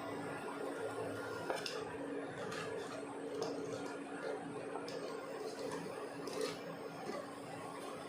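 Spoon scraping and tapping in a pan while flaxseed powder is stirred into thick jaggery syrup, with a string of irregular clicks over a steady low hum.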